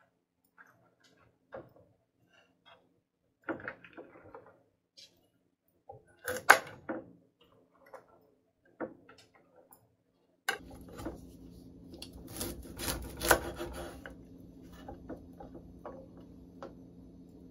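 Broccoli being cut with a chef's knife on a wooden cutting board, with florets pulled off and dropped into a roasting pan's trays: scattered knocks and clicks, the loudest about six and a half seconds in. About ten and a half seconds in, a steady low hum starts underneath.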